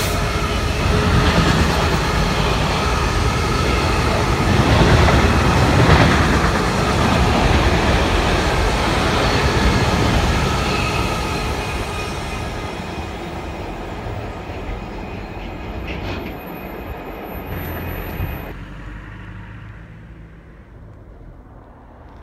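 A Class 66 diesel freight locomotive with its two-stroke V12 engine running passes close by, followed by a long rake of covered freight wagons rolling over the rails. The sound fades as the train draws away, then drops suddenly near the end.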